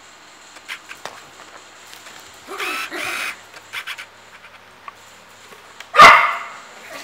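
Toy poodle barking: two short barks about two and a half seconds in, then one much louder bark near the end, with a few light clicks and taps between.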